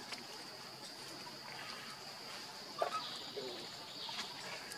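Steady high-pitched insect drone, with a short squeak about three seconds in and a fainter one just after.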